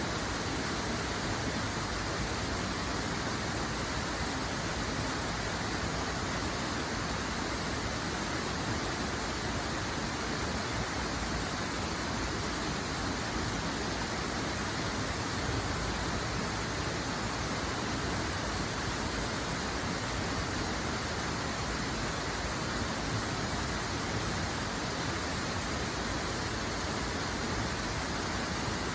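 Flowing water rushing steadily, an even hiss with no breaks or separate splashes.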